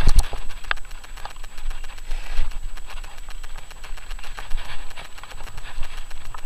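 Mountain bike rolling over a gravel track, heard from the bike itself: tyres crunching on the loose surface and the bike rattling over bumps. There are a couple of hard knocks at the very start and a sharp click under a second in.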